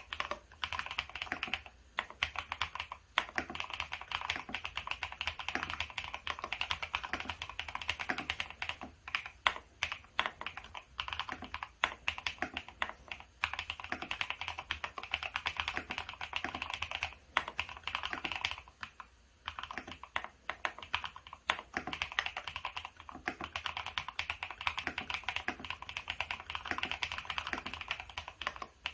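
Typing on a FEKER IK75 gasket-mount mechanical keyboard fitted with Akko CS Silver linear switches and doubleshot PBT OSA-profile keycaps: a fast, dense stream of keystroke clacks with a few short pauses, and a stretch of slower, separate presses near the middle.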